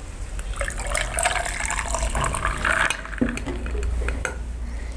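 Iced tea poured from a stainless steel cocktail shaker into a tall glass of ice, splashing as it fills the glass.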